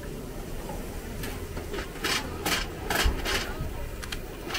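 Night market ambience with a low background rumble and a run of short scraping or rasping sounds, two or three a second, starting about a second in.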